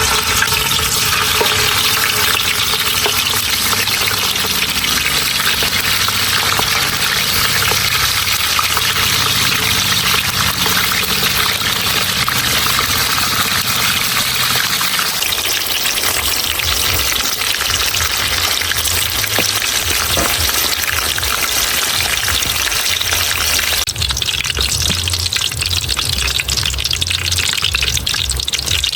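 Hot oil sizzling steadily in a pan as food fries, with a lower rumble underneath that changes about halfway through and again near the end.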